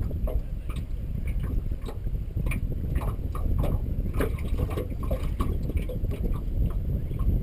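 Wind rumbling on the microphone over water lapping and slapping against a small fishing boat's hull, with many small irregular splashes and knocks.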